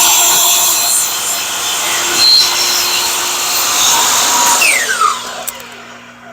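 Power saw cutting through a black walnut board, then switched off about five seconds in and winding down with a falling whine.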